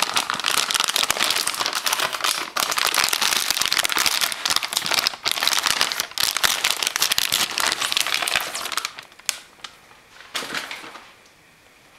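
Clear plastic wrapping crinkling and crackling steadily as a graphics card is unwrapped from it by hand. It dies away about nine seconds in, with one short rustle a little later.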